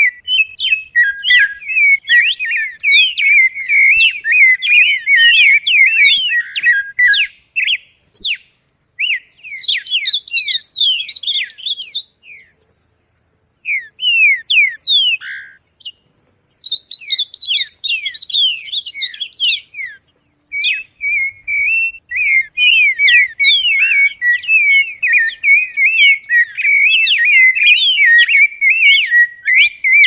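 Songbirds singing: long runs of quick, warbling chirps, with a short pause a little before the middle.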